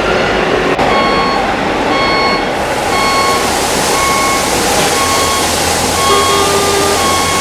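Reversing alarm on a radio-controlled model truck, played by its sound unit: short beeps at one steady pitch, about one a second, over steady background hiss.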